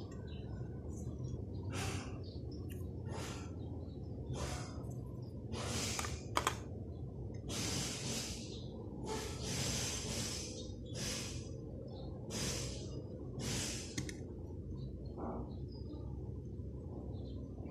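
A person's breathing close to the microphone, about one breath every second and a half, over a steady low hum. A single sharp tap about six seconds in.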